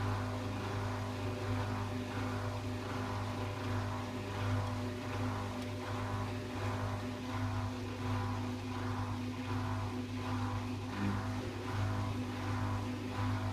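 Samsung WF6700 washing machine running, its AC brush motor humming steadily as the drum turns, with a faint regular pulse a little under twice a second.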